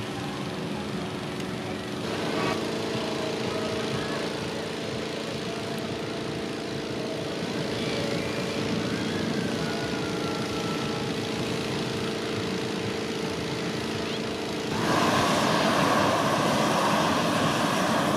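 Small petrol-engined hot-air balloon inflator fan running at a steady hum, then about fifteen seconds in a propane balloon burner fires and the sound jumps to a louder, rushing burn that covers the fan.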